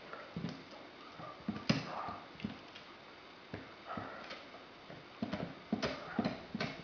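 Greater Swiss Mountain Dog chewing a knotted rawhide bone: irregular clicks of its teeth and jaws on the rawhide, coming thicker and faster near the end.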